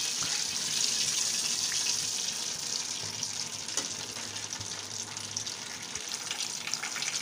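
Whole spices (cumin seeds, bay leaves, cinnamon sticks, black cardamom and black peppercorns) sizzling in hot ghee in a pan: a steady frying hiss that eases a little over the seconds.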